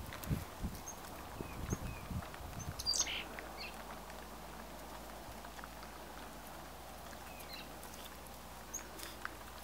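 Small songbird giving short high chirps every second or so, with a few dull low thumps in the first three seconds that are louder than the chirps.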